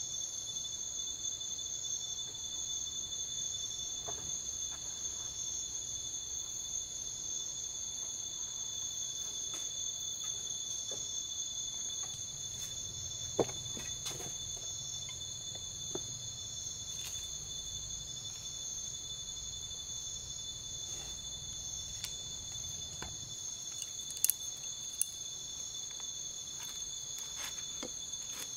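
Night insect chorus: a steady, high-pitched shrilling on two constant pitches that never lets up. A few sharp clicks and knocks cut through it, the loudest about halfway through and twice near the end.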